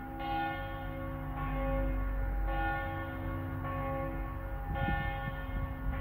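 Church bells ringing, with a new stroke about every second, each note ringing on into the next.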